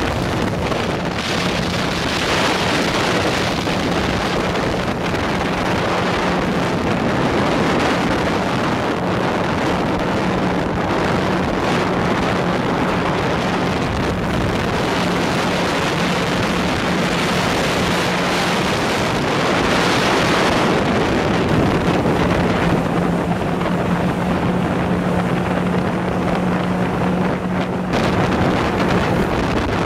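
Speedboat running at speed: a steady engine drone under heavy wind buffeting on the microphone and the rush of water off the hull.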